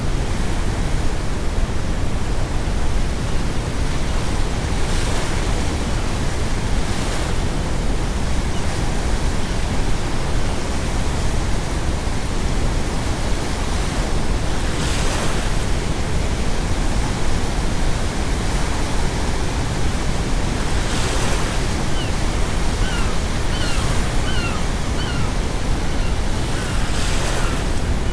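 Steady brown noise layered over ocean waves breaking on a shore every few seconds, with a few short seagull calls near the end.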